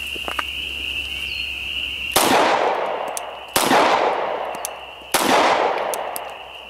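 Glock 22 .40-calibre pistol firing three single shots about a second and a half apart, each followed by a long fading echo. The pistol feeds and cycles from an aftermarket 30-round magazine without jamming.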